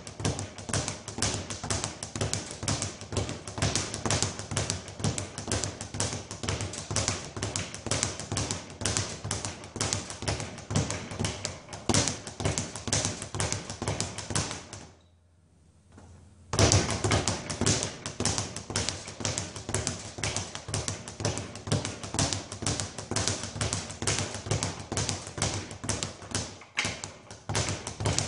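Speed bag being punched in a fast, continuous rhythm, rattling against its rebound platform. The drumming stops for about a second and a half past the middle, then starts again.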